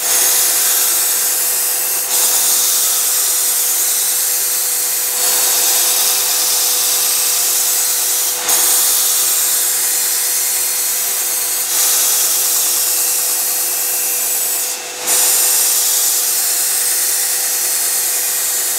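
Belt grinder running with the steel edge of a Shun cleaver pressed against a coarse belt on its slack section: a steady high grinding hiss over a constant whine, with brief dips about every three seconds as one full-length pass ends and the next begins. The whole edge is being ground down to remove chips.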